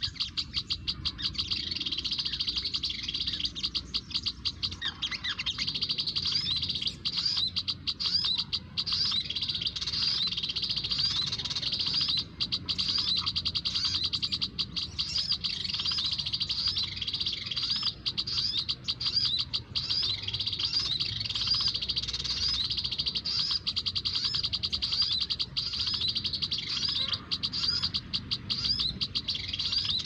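Bird-lure recording played through a speaker: a dense, unbroken chatter of quick high chirps from many small birds, dominated by olive-backed sunbird calls.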